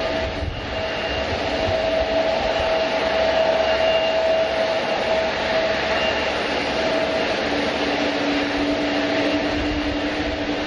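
Jet airliner's turbofan engines at taxi power on an Airbus A321neo: a steady whine of held tones over a broad hiss, swelling slightly a couple of seconds in.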